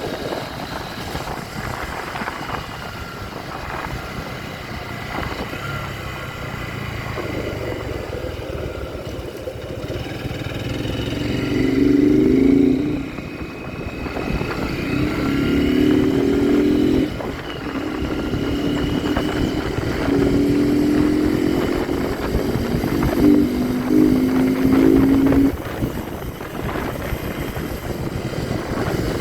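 Motorcycle engine running under way. Its note swells and cuts off five times between about 11 and 25 seconds in, as it accelerates through the gears.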